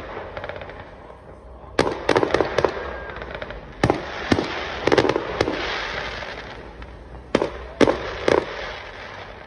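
Aerial fireworks bursting: about a dozen sharp bangs in quick clusters, with a lingering hiss after the middle group.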